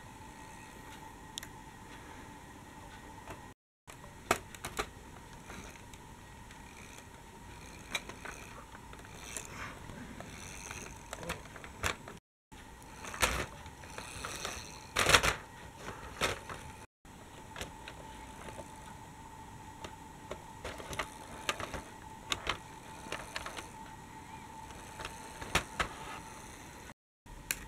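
Scattered light clicks and clacks, the loudest about halfway through, from a plastic toy tram being handled on a wooden model level crossing, over a faint steady high hum.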